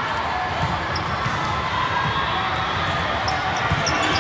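Busy gym during volleyball play: volleyballs hitting the floor and hands in irregular dull thumps over a steady hubbub of voices, with a few short high squeaks, like sneakers on the court, in the second half.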